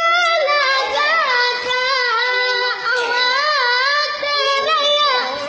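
A boy singing a long, held melody in a high voice, its notes wavering and bending in ornamented turns. The phrase stops just before the end.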